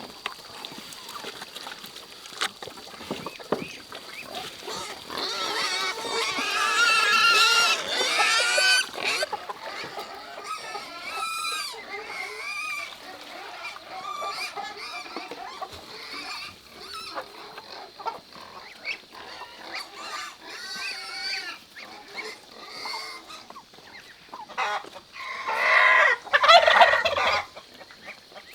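Farm poultry calling, a run of wavering, pitched calls with two louder spells of calling, one about a quarter of the way in and one near the end.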